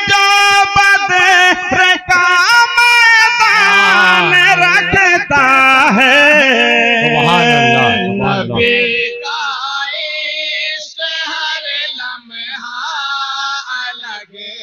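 Group of men chanting an Urdu naat in unison into microphones, with voices only and no instruments. It opens on a long held high note, then moves into ornamented melodic lines, with a second, lower voice joining about three and a half seconds in. After about nine seconds the singing turns quieter and breaks into short phrases.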